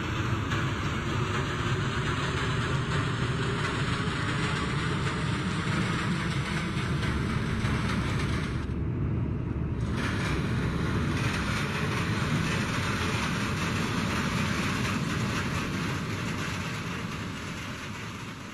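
Steady running noise of a subway train in motion, as heard from inside the car, briefly duller about nine seconds in and fading out near the end.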